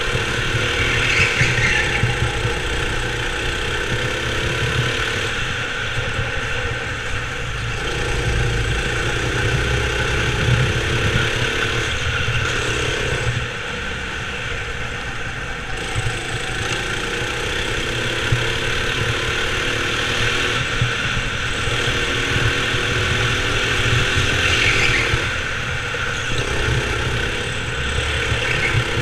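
Rental go-kart engine heard from on the kart while lapping an indoor track, its pitch rising and falling every few seconds as the kart accelerates out of corners and lifts into them.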